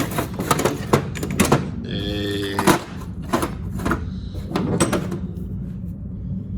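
Metal tools clinking and knocking as they are rummaged through and lifted out of a toolbox drawer, in quick irregular clicks, over a steady low hum.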